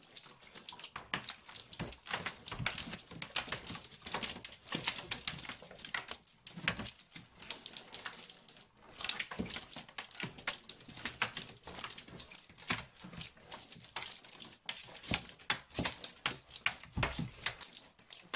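A cat's paws batting and scrambling on a bathtub floor: rapid, irregular taps and light splashy clicks.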